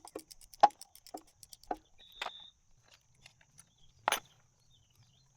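Scattered clicks and knocks of hands and tools handling parts on a motorcycle, with a brief high metallic ring about two seconds in and a louder knock about four seconds in.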